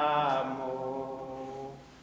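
Slow hymn singing: one long held note fades away near the end, closing a sung phrase.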